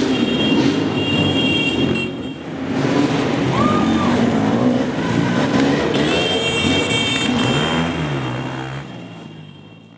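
Dirt bike engines running and revving as the bikes ride the course, the pitch rising and falling with the throttle. The sound fades out near the end.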